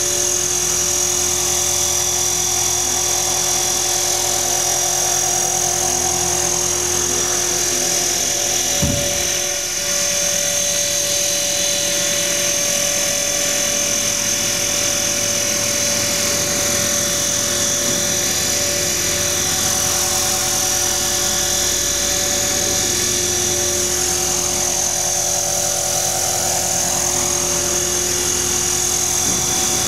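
Align T-Rex 450 XL electric radio-controlled model helicopter flying: a steady high-pitched whine of the electric motor and drivetrain with the hum of the spinning rotors. It holds steady throughout, apart from a brief dip about nine seconds in.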